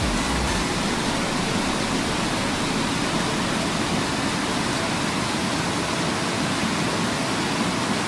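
Loud, steady rush of fast-flowing mountain water close by, an unbroken hiss with no pauses.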